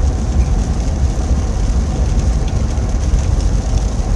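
Steady low road rumble and engine noise inside the cabin of a moving car on a rough road.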